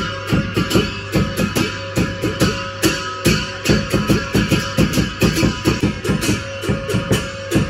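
Background music: a strummed guitar track with a quick, even rhythm.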